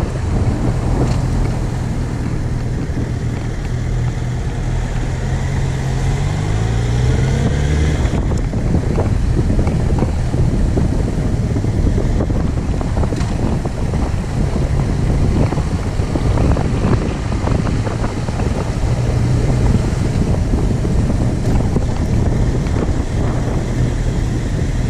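An engine running steadily, its pitch rising over about four seconds partway through as it speeds up, then running on under heavy wind noise on the microphone.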